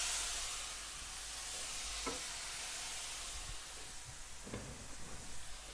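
Water sizzling in a hot iron wok around chunks of jaggery as they start to melt: a steady hiss that eases a little in the first second, with a couple of faint ticks.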